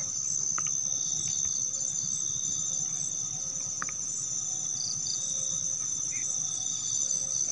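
Crickets chirring: a steady high-pitched trill, with a fainter pulsing insect call lower down and a few faint clicks.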